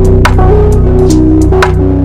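Background music: an electronic pop track with held bass and synth notes over a steady beat.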